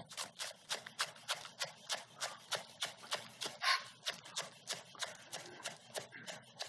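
Chef's knife slicing scallions on a wooden cutting board: a steady run of chopping taps, about four a second, with one louder stroke a little past halfway.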